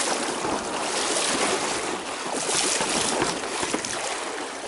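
A small river's current running over a shallow riffle, a steady rush of water.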